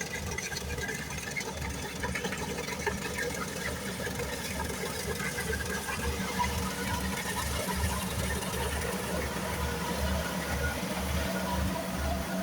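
Kubota rice combine harvester running steadily, its diesel engine giving a low, pulsing throb.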